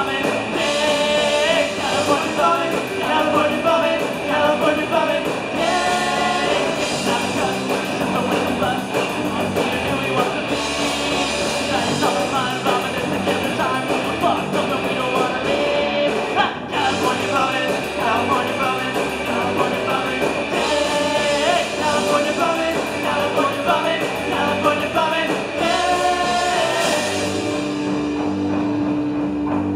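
Punk rock band playing live: distorted electric guitars, bass and drums under shouted singing. Near the end the cymbals drop away and one steady note is held.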